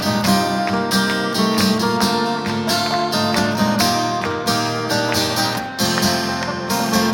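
Guitars playing the instrumental intro of a pop-rock song, strummed chords with ringing picked notes, leading into the first verse.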